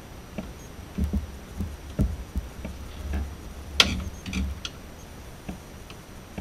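Scattered light knocks and clicks from hands working a car's hood vent and its retaining clips on the underside of the hood. The sharpest click comes about two-thirds of the way through.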